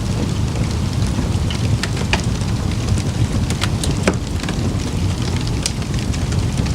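Campfire crackling: scattered sharp pops and snaps over a steady low rumble, the loudest pop about four seconds in.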